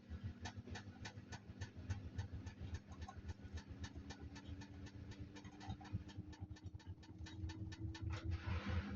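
Samsung washing machine running a cotton cycle: a regular ticking of about four clicks a second over a pulsing low motor hum whose pitch rises slowly. A brief hiss comes near the end.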